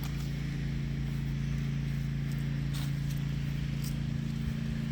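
A steady low mechanical hum, like an engine or motor running at a constant speed, with a couple of faint clicks in the middle.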